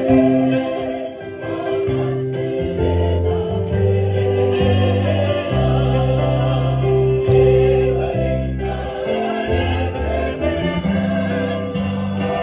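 Choir singing the entrance hymn of a Catholic Mass in long held notes over a sustained bass line.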